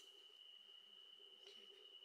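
Near silence outdoors at dusk, with only a faint, steady, high-pitched thin tone.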